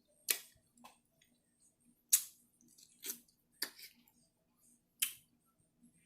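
Eating sounds: sharp, wet mouth smacks and clicks of someone chewing, about seven separate ones at irregular intervals.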